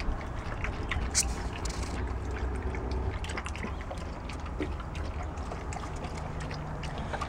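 Yellow Labrador puppy lapping water from a small bowl, a quick run of wet laps and splashes, over a low steady rumble.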